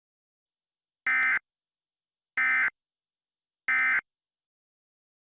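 Emergency Alert System end-of-message data tones: three short, identical buzzing bursts about a second apart, marking the end of the alert.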